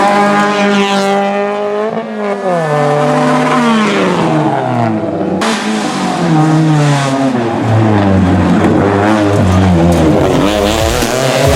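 Rally car engine running at high revs. Its pitch climbs, drops sharply about two seconds in, then falls in a series of stepped glides over several seconds as it shifts gear.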